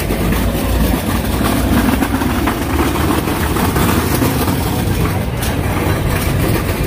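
Steady, loud, low engine rumble with a hiss above it, keeping an even level throughout.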